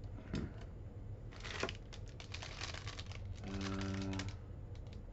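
Plastic packaging and small parts being handled while a soldering kit is unpacked: a run of quick clicks and crinkling rustles, with a short steady hum-like tone about three and a half seconds in.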